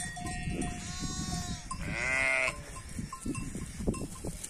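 Sheep bleating: one long call in the first second and a half, then a louder, shorter bleat about two seconds in.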